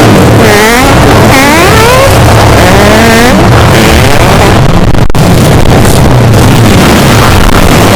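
Fart sound effects played very loud and distorted: continuous noisy flapping sound with several upward pitch slides in the first few seconds, and a sharp click about five seconds in.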